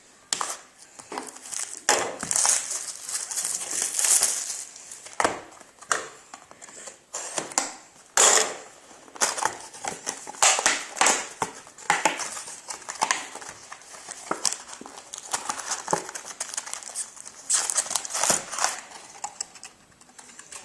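Plastic wrap crinkling and cardboard rustling as a sealed box of trading cards is unwrapped and opened, in many irregular crackly handfuls.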